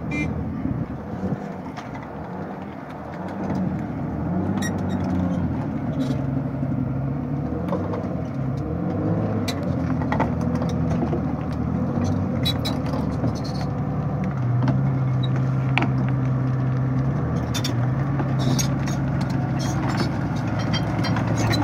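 Engine of a tracked armored combat vehicle running, its low pitch shifting up and down and growing louder about three seconds in, with scattered sharp knocks.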